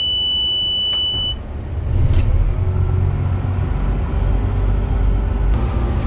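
A steady high-pitched warning tone sounds in the cab and cuts off about a second and a half in, then the tractor's engine starts and runs steadily, heard from inside the cab.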